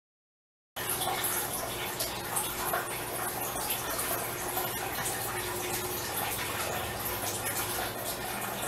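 Steady rushing, water-like background noise over a low hum, cutting in abruptly just under a second in, with small crackles and ticks on top.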